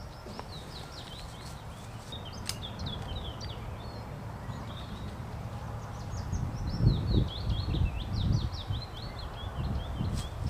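A songbird singing two long phrases of rapid high chirps. From a little past halfway come louder low thumps and rustling as a person settles into dry leaf litter against a tree and handles a gun.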